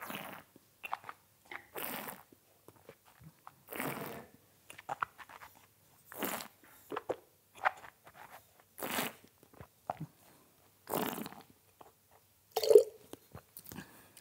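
Wine taster sipping red wine and drawing air through it in the mouth, a series of short noisy slurps every second or two, the loudest near the end.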